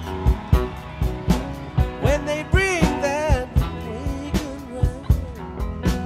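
Background music with a steady drum beat. A pitched melody bends up and down about two to three and a half seconds in.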